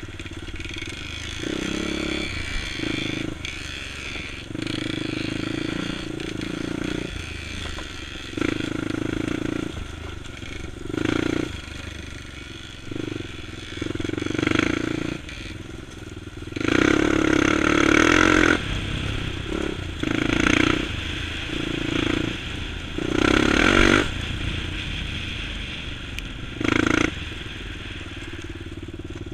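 Honda TRX400EX ATV's single-cylinder four-stroke engine revving in repeated surges as the throttle is worked on and off while riding over rough ground. The loudest, longest surges come about two-thirds of the way through.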